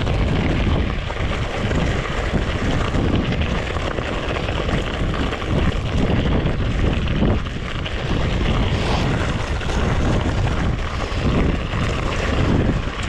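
Wind buffeting the microphone during a mountain-bike ride: a steady, deep rushing rumble that swells and dips unevenly.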